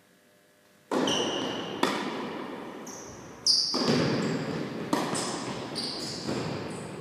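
Tennis balls struck with a racket and bouncing on an indoor court: a run of sharp hits about a second apart, each with a brief high ring and a long echo in the hall. The loudest hits come about a second in and about halfway through.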